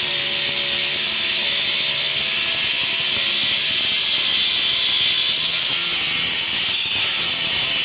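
Handheld electric circular saw cutting steadily through a granite slab: a loud, even, high grinding hiss.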